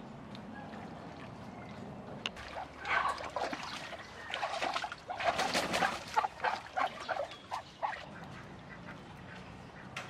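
Domestic ducks quacking in bursts from about two and a half seconds in, with a quick run of short quacks near eight seconds, and a flurry of wingbeats midway as a duck flaps.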